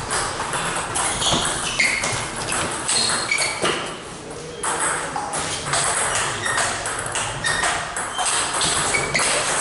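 Table tennis rally: the ball clicking off the paddles and bouncing on the table in quick back-and-forth strikes, each with a short, high ping, echoing in a large hall. A brief lull comes about four seconds in before play resumes.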